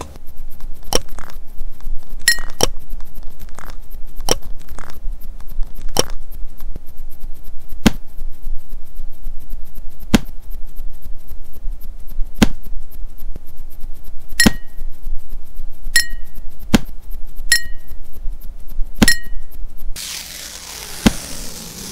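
Sparse dub-style beat built from sampled household sounds: sharp clicks and knocks about every two seconds, several with a short glassy ring like a spoon striking a glass cup, over a fast, faint crackling tick. Near the end the hits stop and a hissing wash takes over.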